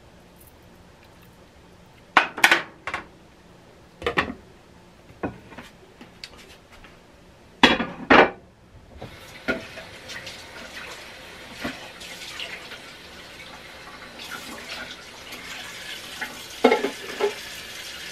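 Kitchenware clanking several times in a sink, then a kitchen tap running steadily as things are rinsed under it.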